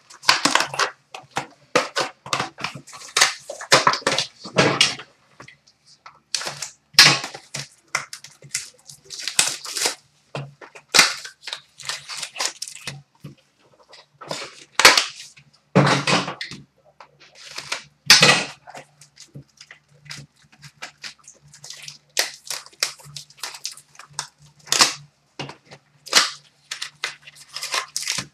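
Cardboard box and hockey card packs handled and opened: an irregular run of short, sharp crackles, rips and clicks as the box is torn open and packs are pulled out and set down on a glass counter.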